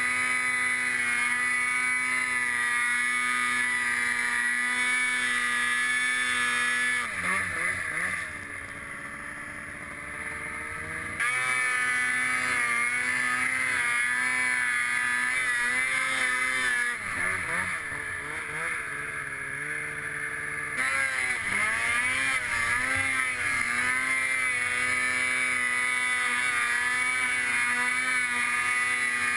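Snowmobile engine running hard at high revs through deep powder. Twice the throttle eases off, the pitch sagging and wavering and the sound dropping, then it opens back up sharply to full revs.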